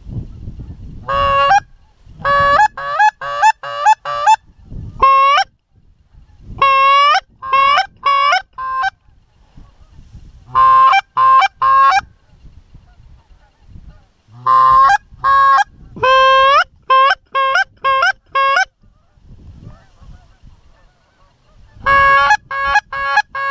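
Geese honking loudly, in quick runs of two to six calls with short pauses between runs; several calls slide upward at the start.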